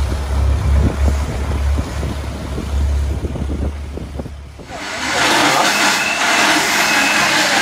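Wind buffeting the microphone over the rush of water from a moving river boat. About two-thirds in it cuts abruptly to busy street ambience with voices.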